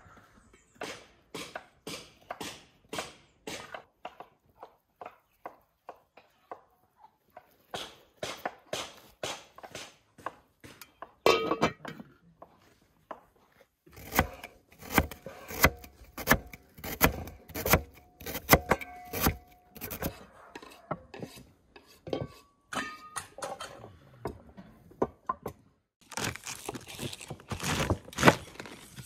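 Kitchen knife cutting raw beetroot into strips on a wooden chopping board: runs of quick knocks against the board. Near the end the knife crunches through a raw head of white cabbage.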